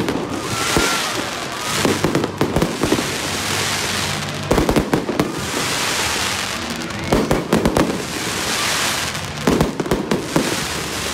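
Aerial fireworks display: clusters of rapid bangs and cracks come about every two and a half seconds, with a crackling hiss between the clusters.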